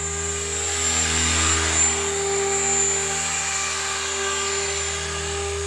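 Radio-controlled helicopter flying, its rotor and motor running steadily: an even hum with a thin high whine above it, swelling slightly as it moves.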